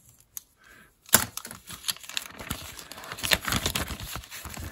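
Clear plastic bag crinkling and rustling as a model kit's decal sheet is pulled out of it, starting about a second in.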